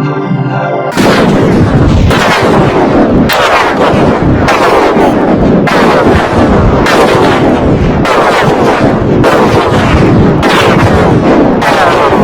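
Burp sounds made harsh and dense by stacked audio effects, each starting abruptly and repeating about once every 1.2 seconds, ten times in all. A held electronic chord fills the first second.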